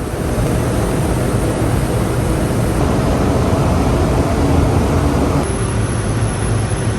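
Loud, steady rumble and roar of a cargo ship's machinery. The sound changes abruptly about five and a half seconds in, after which a thin high whine runs over the rumble.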